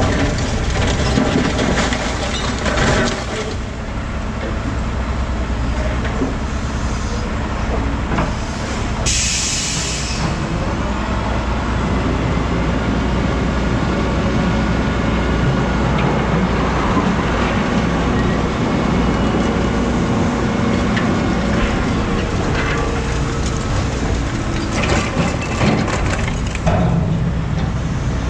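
Heavy diesel end-dump truck running steadily, with one short burst of air hiss about nine seconds in.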